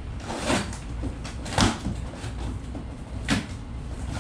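Cardboard shipping boxes being handled and their flaps pulled open: three sharp cardboard scrapes and knocks, the loudest about a second and a half in, over a steady low rumble.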